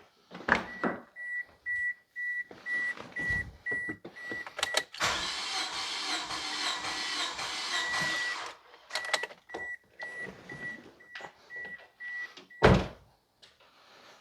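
Starter cranking the Corolla's 1.8-litre four-cylinder engine for about three and a half seconds to build pressure on a compression gauge. The car's warning chime beeps steadily before and after the cranking, and there is one loud knock near the end.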